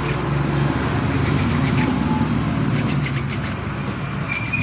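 A motorcycle engine idling steadily, its low pitch wavering slightly, with a few faint light clicks over it.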